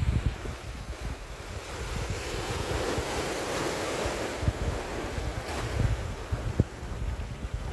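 Atlantic Ocean waves breaking and washing in, with a swell of surf about halfway through, over gusty wind buffeting the microphone.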